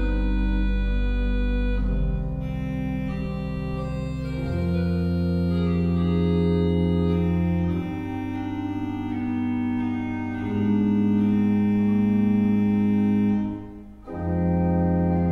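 Baroque-style pipe organ playing slow, held chords over deep bass notes, the harmony shifting every few seconds. Near the end the sound breaks off for a moment, then a new chord comes in.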